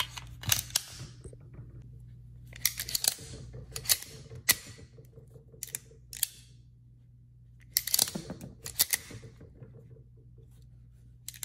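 Beretta 92A1 pistol's action being worked by hand for a function test, its slide racked and its hammer snapping: sharp metallic clicks and clacks in several separate groups with pauses between.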